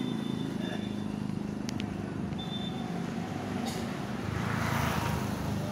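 A motor vehicle running steadily on a street, a low hum, with two sharp clicks about a second and a half in and a swell of hiss near the end.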